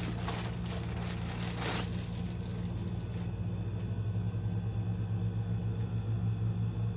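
Steady low hum of a room air conditioner, with rustling from handling packaging and fabric during the first two seconds.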